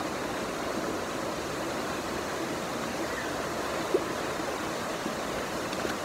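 Steady rush of water cascading down a rocky waterfall stream, with one brief tap about four seconds in.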